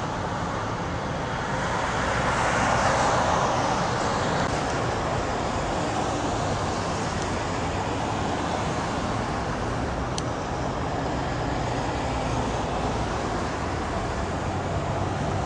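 Steady city street traffic noise, with a vehicle passing by and swelling louder about two to four seconds in.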